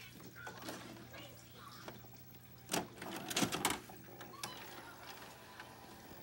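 VHS cassette pushed into a VCR: a cluster of clicks and clunks a little under three seconds in as the loading mechanism takes the tape in, over a low steady hum.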